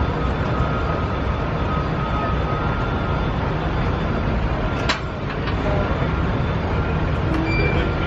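Low, steady rumble of a parking-lot tram's engine as it rolls along, with a single sharp click about five seconds in.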